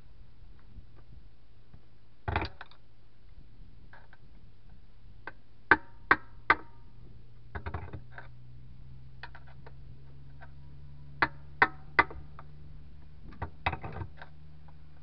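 Hammer striking a tire iron against a tractor's steel wheel rim: sharp metallic taps, several in quick runs of three, some ringing briefly, as the iron is driven in to pry the tire bead off the rim.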